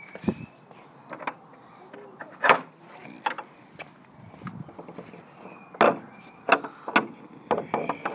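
A gate being opened and passed through: scattered knocks, clicks and rattles, the loudest a sharp knock about two and a half seconds in, with a quicker run of knocks near the end.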